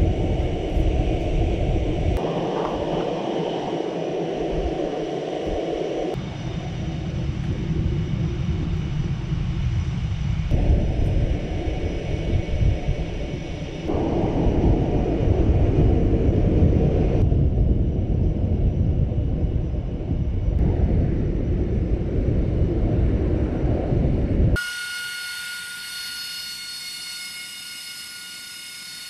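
AV-8B Harrier II jet engine noise on the flight line: a loud, dense low rumble that shifts abruptly several times. Near the end it changes to a high, steady turbine whine made of several held tones.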